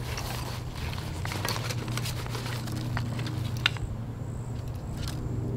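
Hands rustling a nylon stuff sack and crinkling packaging while a new camping stove is taken out, with small clicks of handling. A sharp click comes a little past the middle. A steady low hum runs underneath.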